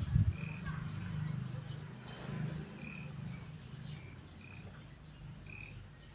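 Low croaking animal calls through the first two and a half seconds, opening with a sharp loud burst, over short high bird chirps that repeat every second or so.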